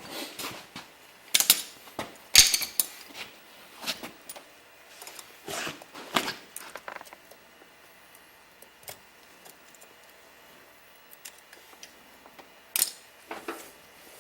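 Metal clinks and scrapes of a tool working a retaining clip out of the 3rd/4th gear clutch drum of an automatic transmission, in bursts over the first half, then a lull, then a couple more clinks near the end.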